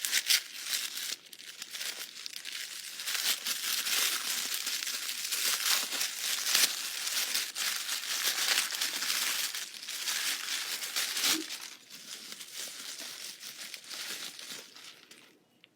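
Packaging crinkling and rustling as it is unwrapped by hand, in irregular crackles. It grows quieter about twelve seconds in and dies away near the end.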